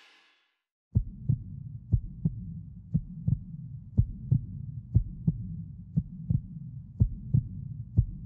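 Heartbeat sound effect: paired low thumps about once a second over a low rumble, starting about a second in.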